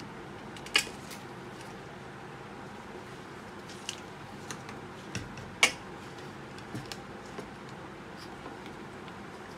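Handling noise from an electric duck-call unit being assembled by hand: its plastic casing, cables and antenna click and rustle, with two louder clicks about a second in and just past the middle, over a steady background hiss.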